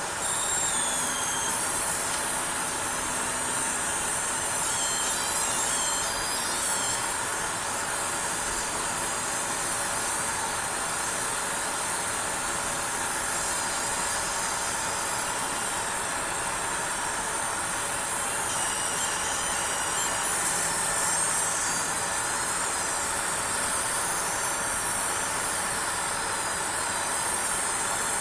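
Graphics card coil whine: a high-pitched electrical whine that wavers and shifts in pitch now and then, over a steady hiss.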